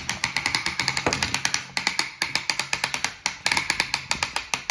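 Toy race-track set clicking rapidly and evenly, about ten sharp clicks a second over a steady hum.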